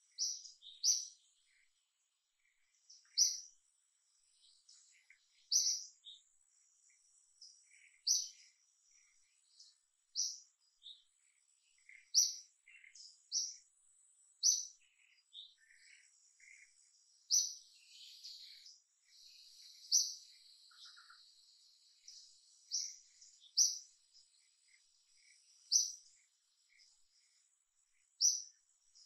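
Birds chirping: short high chirps, singly or in pairs, every second or two, over a faint steady high whine.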